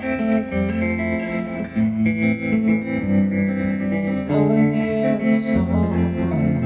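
Electric guitar playing a sequence of held chords, changing roughly once a second.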